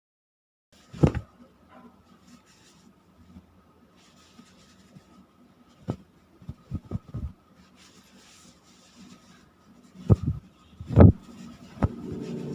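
A series of sharp knocks and taps: one about a second in, a quick run of several about six to seven seconds in, and three more near the end. Under them is a faint steady high hum.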